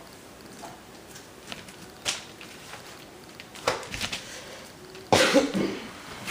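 Quiet room tone with a few light clicks, then one loud cough about five seconds in.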